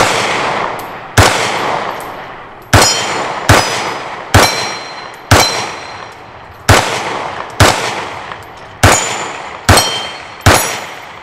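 A slow string of about eleven handgun shots from a compact double-action/single-action pistol, roughly one a second. After most of the hits, the AR500 steel targets ring with a high tone.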